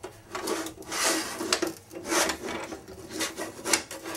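GunVault NanoVault portable steel gun safes being slid and stacked on one another, a run of short rubbing scrapes as the cases move against each other.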